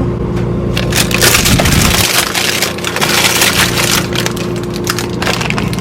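Plastic food packaging and bags crinkling and crackling as they are handled, a dense run of sharp crackles throughout.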